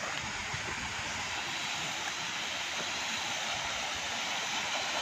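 A steady, even rushing hiss, with a few faint low thuds underneath.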